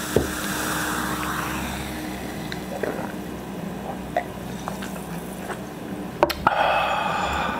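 Cola fizzing softly in a glass, with small ticks as it is drunk. About six seconds in, the glass clacks down on a wooden board, followed by a loud breathy sound.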